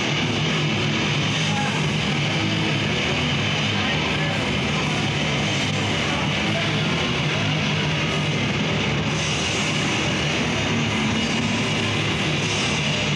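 Death metal band playing live, with distorted electric guitar in a dense, loud, unbroken wall of sound.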